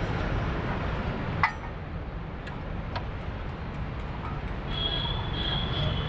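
Metal clinks from the removed front hub and steering knuckle with its brake disc being handled on a concrete floor: one sharp clink about one and a half seconds in, then a few lighter ticks. Underneath runs a steady low rumble.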